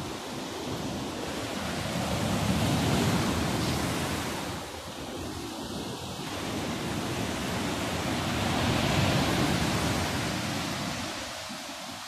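Black Sea surf washing in against the shore: an unbroken rush of water noise that swells up twice, about three seconds in and again about nine seconds in, each time building and falling away slowly.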